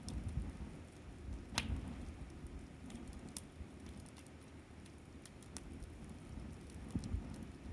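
Wood fire crackling, with scattered sharp pops at irregular moments over a low rumble.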